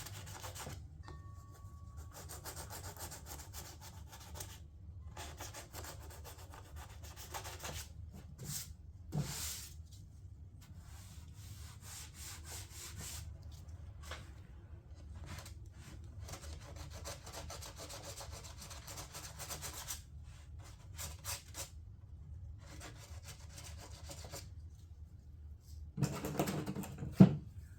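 Hand sanding partly cured body filler on a fiberglass door panel: sandpaper rubbing over the surface in passes a few seconds long with short pauses, knocking down high spots while the filler is still soft. A sharp knock near the end.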